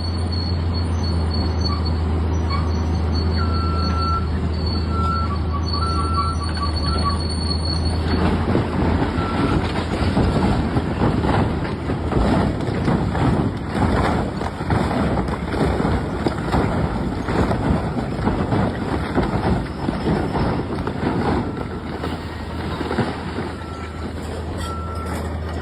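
Heavy machinery running: a steady low hum, then from about eight seconds in a denser, rattling clatter.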